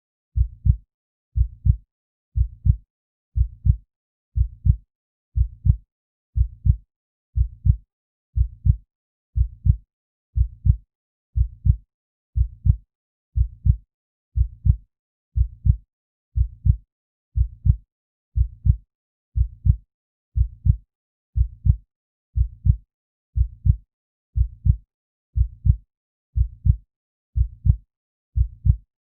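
Heartbeat sound effect: a steady, slow beat of low lub-dub double thumps, about one beat a second.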